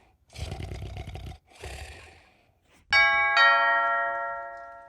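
Two short, rough, noisy bursts, then a two-note ding-dong doorbell chime sound effect about three seconds in, its notes ringing out and fading.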